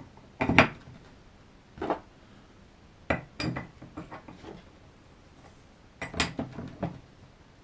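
Laser-cut steel parts of a guillotine tool clinking and knocking against each other as the tabs are slid into their slots. Sharp metallic clicks come in irregular groups, the loudest about half a second in.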